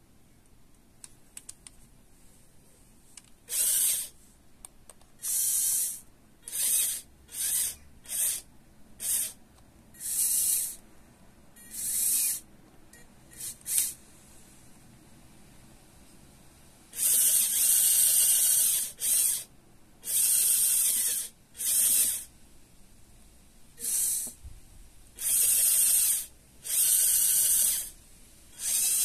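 Lego Technic electric motor driving the plastic gears of a gripper claw in repeated short bursts, a high whir that starts and stops about every second or two, beginning a few seconds in.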